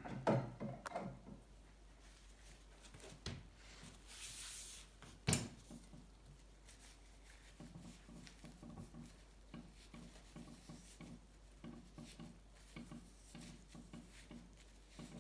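Hand work on old bicycle parts: clatter of tools and metal parts in the first second, a short hiss, one sharp knock about five seconds in, then a long stretch of soft, quick rubbing or scraping.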